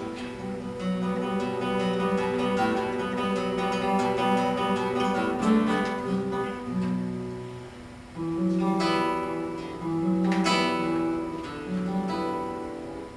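Solo classical guitar with nylon strings played fingerstyle: a flowing line of plucked notes and chords. The playing eases off about eight seconds in, then picks up again with firm chords.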